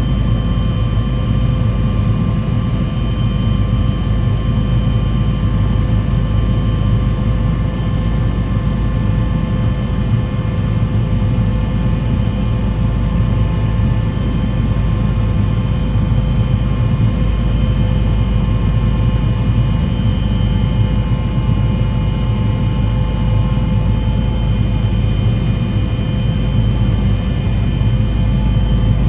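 Steady engine drone: a heavy low rumble with several steady whining tones above it, unchanging in pitch.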